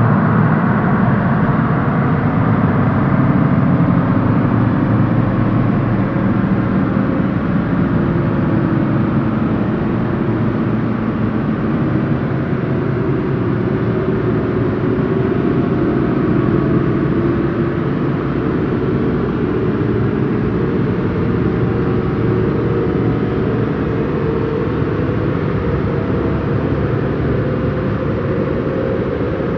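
Sci-fi alien spaceship takeoff sound effect: a loud, steady low rumbling drone with a hum whose pitch slowly rises.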